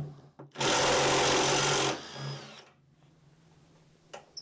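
Cordless power driver with a 16 mm socket running for about a second and a half, backing out a hold-down bolt, then winding down.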